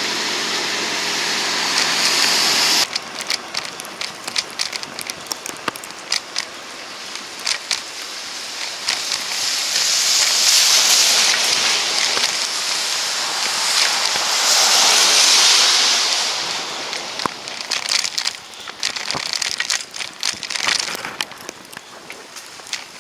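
Street sound during a snowstorm. At first a steady motor hum cuts off abruptly. Then comes crackling over a hiss, and twice the hiss swells up and fades away, like tyres passing on wet, slushy pavement.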